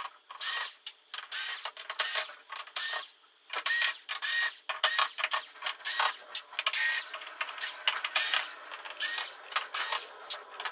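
Small cordless power screwdriver running in many short bursts as it backs screws out of a flat-screen TV's plastic back cover; several bursts open with a brief rising whine as the motor spins up.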